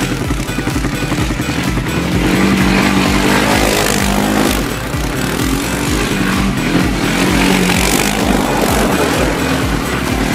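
Kawasaki Brute Force 300 ATV's single-cylinder engine revving up and down as the quad spins and slides through snow.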